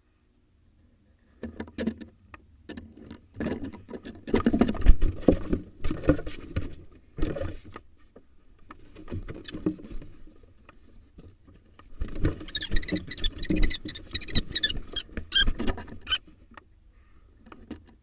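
A female kestrel and a male barn owl scuffling inside a wooden nest box: wings beating and claws scraping and thumping on the box floor and nest litter. The sound comes in two bouts of rapid scratching and knocks with a quieter patch between, and the second bout has sharper, higher scratches.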